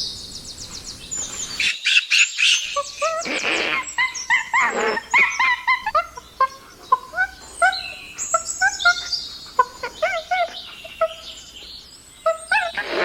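Chimpanzee calls: loud shrieks, then a rapid run of short hoots that rise and fall in pitch, several a second.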